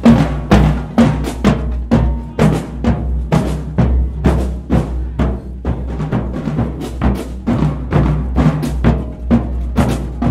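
Marching band drumline playing a cadence: snare, tenor and bass drums beating a steady march rhythm with quick fills between the main beats.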